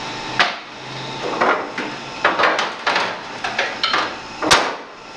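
Dishes and food containers knocking and clattering against refrigerator shelves as they are shifted to make room, a series of irregular knocks with the loudest about four and a half seconds in.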